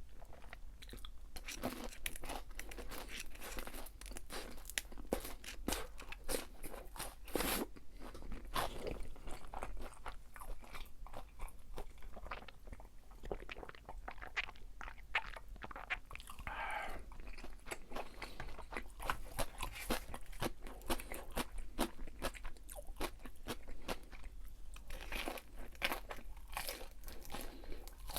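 Chewing and crunching of crispy fried food, a dense run of irregular crackly crunches.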